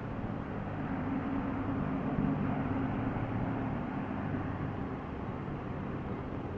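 A steady low rumble under an even hiss, swelling a little about two seconds in.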